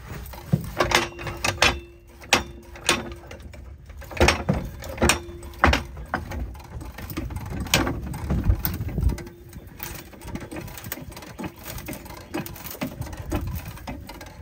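Irregular knocks, clicks and a few heavier thumps as a jack and a block of wood are handled and positioned under the jacked-up front of an Airstream trailer.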